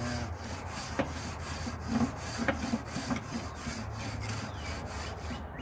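Wire grill brush scraping over a hot metal charcoal-grill grate in repeated back-and-forth strokes, cleaning it before the food goes on.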